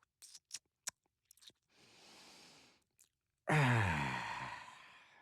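A man making 'dad noises': a few wet mouth clicks and lip smacks, a soft breath, then a long voiced sigh-groan that falls in pitch and trails off.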